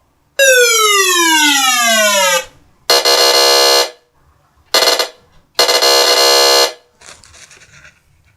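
Homemade electronic siren built around a PIC16F628A microcontroller: one falling tone sweep lasting about two seconds, then three bursts of a steady buzzing horn tone, the middle one short.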